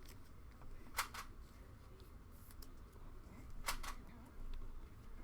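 Trading cards being handled and flipped through, with faint rustling and two sharp clicks of card against card, about a second in and again near the end.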